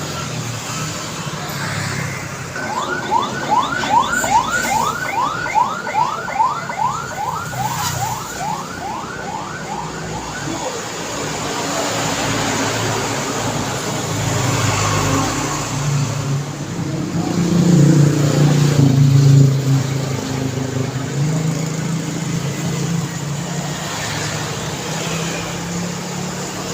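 Busy road traffic passing close by. Early on, a rapid electronic warbler sounds for about eight seconds: a run of quick rising whoops, a couple each second, like a car alarm or yelp siren. About two-thirds of the way through, a heavy vehicle's engine swells, loudest as it passes, then settles back into the traffic drone.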